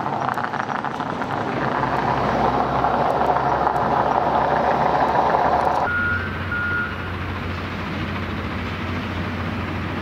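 Steady rushing noise of a moving vehicle. About six seconds in, it cuts abruptly to a quieter, steady low engine hum of construction machinery, with a few short high beeps just after the change.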